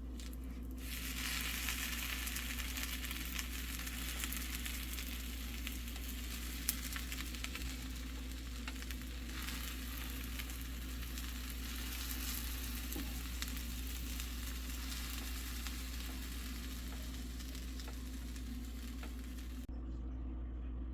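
Food frying in a pan, a steady sizzle that cuts off suddenly near the end, with one sharp click about a third of the way in. A low steady hum runs underneath.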